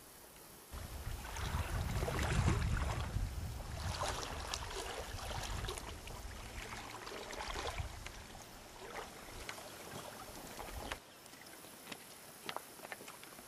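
Wind buffeting the microphone as a low rumble with a rushing hiss over it. It starts suddenly about a second in and cuts off near the end, leaving a faint outdoor hiss.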